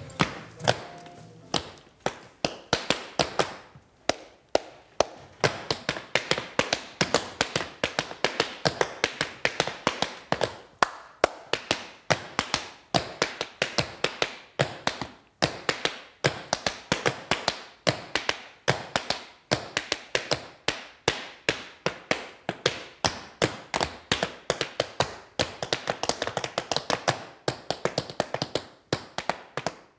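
Tap shoes dancing on a small wooden board: a fast, rhythmic stream of sharp taps from toes and heels, broken by a few short pauses.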